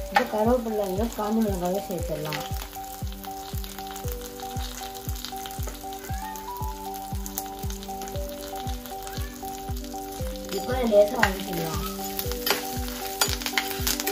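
Urad dal, shallots and garlic frying in hot oil in a stainless steel pan, a steady sizzle and crackle, with dried red chillies and curry leaves added partway and a spoon stirring near the end. Background music with a steady beat and held melody notes plays over it.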